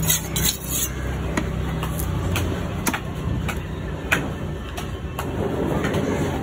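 Large knife cutting steaks off a big fish on a wooden chopping block: irregular sharp knocks as the blade chops through and hits the wood, over a steady low rumble of engines and market noise.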